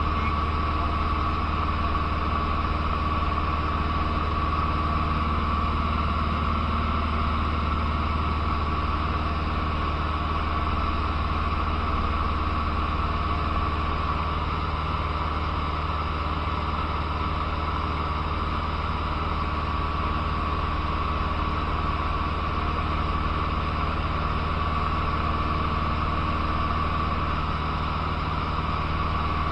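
Cessna 150's four-cylinder Continental O-200 engine and propeller droning steadily at cruise power, heard from inside the cockpit with an even rushing hiss of airflow over it.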